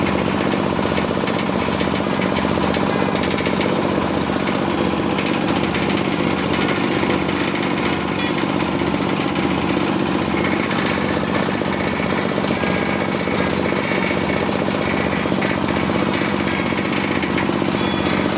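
Engine-driven oil palm frond chopper running under load, its blades shredding a palm frond fed into the hopper; a loud, steady mechanical din with no let-up.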